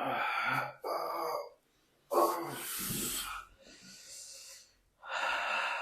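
A person breathing deeply and audibly, about five breaths in and out in a row, each lasting around a second.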